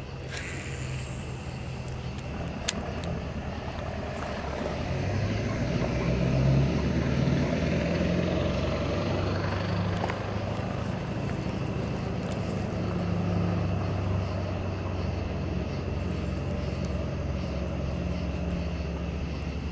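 A boat's motor running on the water, a steady low drone that swells about six seconds in and then holds.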